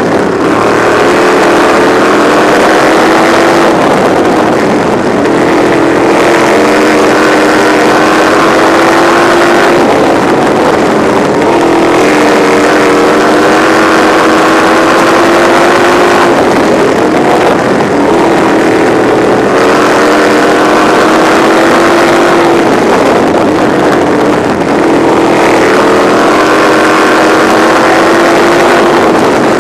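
Racing sprint car engine heard from the cockpit at full race pace. Its pitch climbs, falls away briefly and climbs again, over and over: on the gas down each straightaway and off for each turn, lap after lap.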